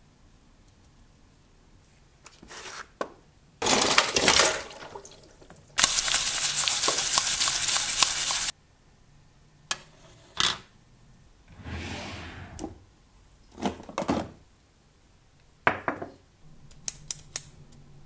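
Small parts of a die-cast scale model car being handled and taken apart: scattered plastic clicks and knocks, then a quick run of sharp metal clinks near the end. A loud steady hiss runs for about three seconds in the middle.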